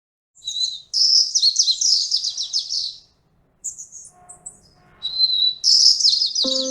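A songbird singing in quick, high trilled phrases, with a short break about three seconds in before more song. Plucked guitar music begins near the end.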